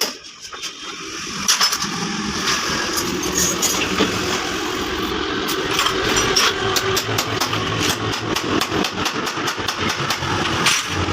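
A small motorcycle engine starting about a second in and then running steadily, with a rapid clatter of clicks over it.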